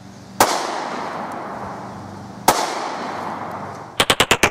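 Two shots from a Smith & Wesson Shield 9mm pistol, about two seconds apart, each trailing off in a long fading echo. Near the end comes a quick run of about six sharp clicks.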